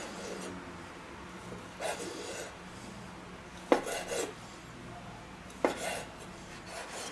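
Chef's knife slicing bratwurst into rounds on a wooden cutting board: about five separate cuts, each ending in a short knock of the blade on the wood.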